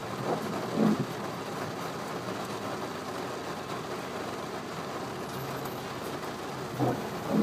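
Inside a moving car in heavy rain: a steady wash of rain and road noise, with a short double thump of the windscreen wipers sweeping about a second in and again near the end. The wipers are overwhelmed by the downpour.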